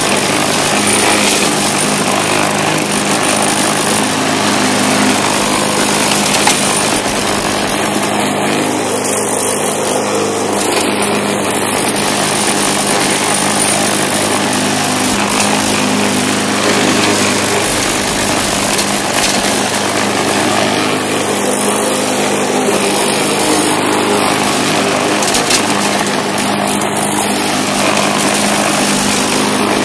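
Bolens walk-behind mulching mower's Briggs & Stratton engine running steadily while cutting grass.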